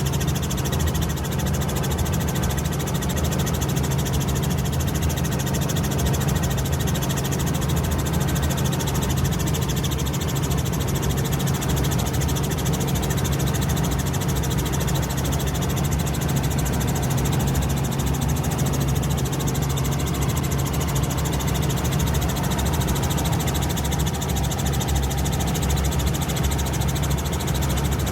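An engine running steadily at an even pitch, a constant low drone with no change in speed.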